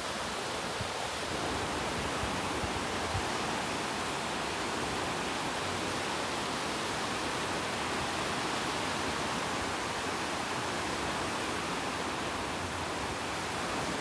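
Small waves breaking and washing onto a sandy beach: a steady, even rush of surf.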